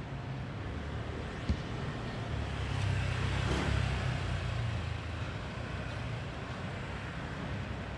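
A motor vehicle passing by over a steady low rumble of traffic, building to a peak about three and a half seconds in and then fading. A single sharp click about a second and a half in.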